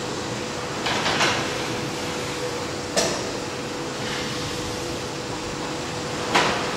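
Steady machine hum with a faint steady tone, broken by a few sharp metallic knocks, three of them seconds apart, from a sectioned triple-expansion marine steam engine turned over slowly by the museum's drive.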